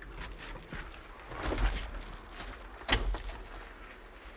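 A person climbing into an excavator cab and sitting down: shuffling and rustling of the plastic wrapping on the seat, with a sharp knock about three seconds in.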